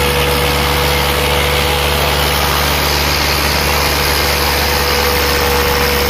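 Diesel engines of two tractors, a Swaraj and a Sonalika, running hard and steady under full load as they pull against each other in a tug-of-war, with a steady high whine over the engine note.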